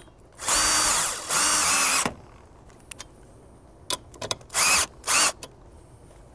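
Cordless drill/driver with a hex socket driving a lag screw through a metal saddle bracket into a wooden post. The motor whines in two runs of under a second each, then after a pause with a few clicks comes two shorter runs near the end as the screw seats.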